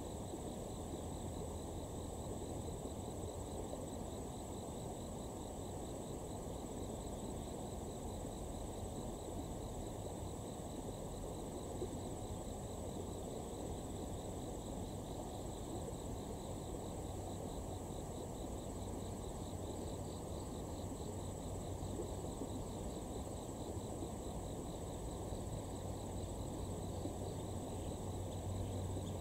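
Insects singing steadily in a high, fast-pulsing trill, over a steady low rumble.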